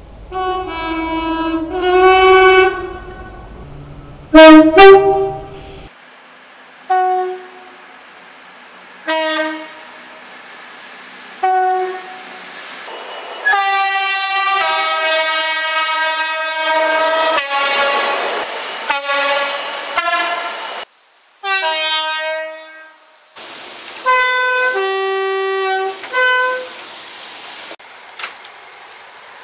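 A series of British train horns sounded one after another, mostly short two-tone blasts from different locomotives and multiple units, with one longer blast held for several seconds about halfway through. A faint rising whine runs under the gaps between horns in the first half.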